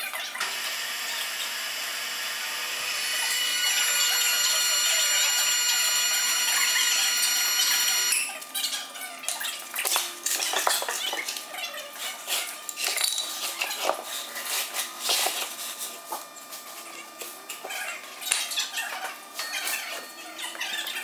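A machine runs with a steady, high whine of many tones for about eight seconds, gets louder partway through, then cuts off suddenly. Irregular metal clanks and knocks from parts and tools being handled follow.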